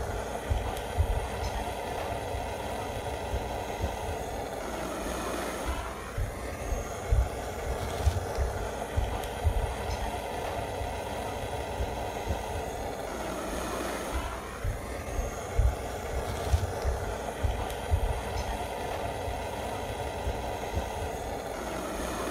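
Bison Airlighter 420 butane torch lighter running with its built-in air blower: a steady rushing hiss of flame and fan air, with irregular low rumbles. The rush shifts in tone a few times as the torch is moved about.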